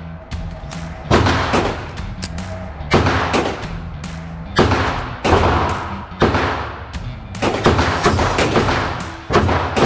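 Ruger Mark IV .22 LR semi-automatic pistol firing about ten shots at irregular spacing, a second or less to nearly two seconds apart, each a sharp crack that rings out briefly.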